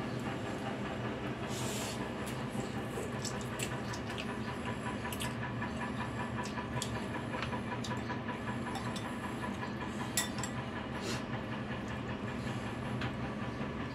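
Noodles being eaten: slurping and the clink of a metal fork and spoon against a ceramic bowl, over a steady mechanical hum.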